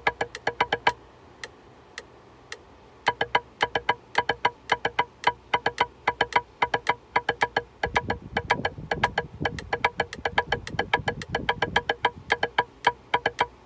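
Drumsticks striking a practice pad in a quick, even run of strokes for a drumline rudiment exercise, breaking off for about two seconds near the start and then picking up again. A low rumble sits underneath for a few seconds in the second half.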